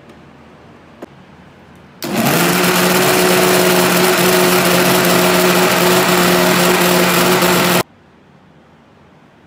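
Sharp countertop blender motor spinning up quickly and then running steadily at speed, mixing a liquid milk-and-yogurt ice-cream base; it starts about two seconds in and stops abruptly about six seconds later.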